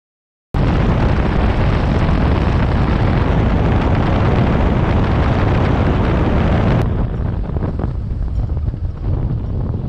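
Wind buffeting the microphone, a loud rumbling rush that cuts in abruptly about half a second in and turns quieter and less hissy near seven seconds in.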